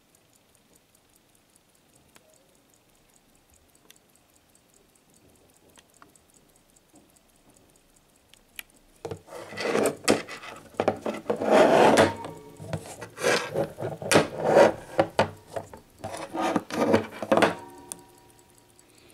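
Mechanical watch ticking faintly and evenly. About nine seconds in comes loud, irregular rubbing and scraping on wood for about eight seconds, as of watches being handled and slid across the wooden sound-box, then it dies back down.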